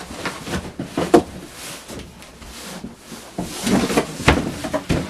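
Packaging being handled and opened: irregular rustling with sharp knocks and clicks, the loudest about a second in and again just after four seconds in.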